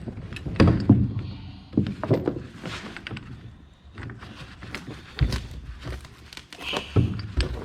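Steel tie-down chain and a chain binder being handled and hooked in: irregular metal knocks and clinks, with a few sharper ones about two seconds in and near the end.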